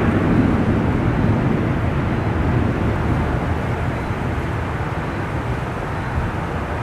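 Thunder rolling: a low rumble that slowly fades over several seconds.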